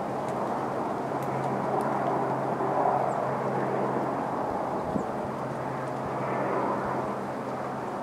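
A distant engine drones steadily with a low hum, swelling a little about three seconds in. A single short knock sounds about five seconds in.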